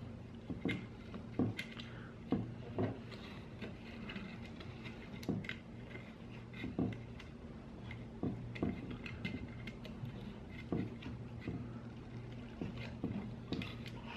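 Small clicks, taps and rustles of cables and plastic parts being handled and threaded through a quadcopter frame, over a steady low hum.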